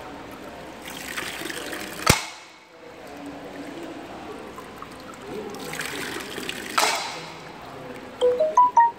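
Diya Holmana, a water-driven bamboo see-saw pest scarer: water trickles steadily into the bamboo tube, which tips and falls back with a sharp knock about two seconds in, then empties again with a rush of pouring water and a second loud knock about seven seconds in. The knocking is the noise meant to scare pests from the fields. A few short high chirps come near the end.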